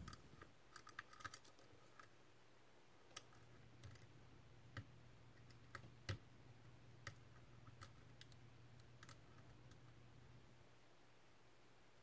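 Faint, irregular light clicks of lock picking tools working in a Medeco M3 lock, a quick cluster at first, then single clicks every second or so, stopping about nine seconds in, over a low steady hum.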